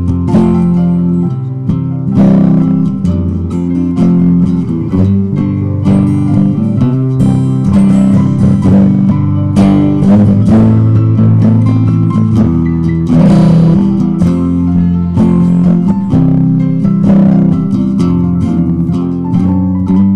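Guitar music: plucked guitar notes over a strong, steady low bass line.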